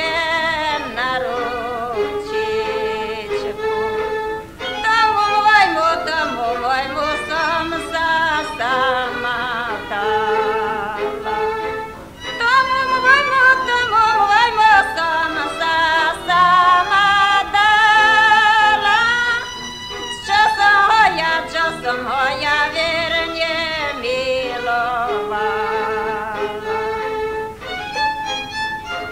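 A woman singing a Slovak folk song solo in a wavering, vibrato-rich voice, from an old recording made around 1958.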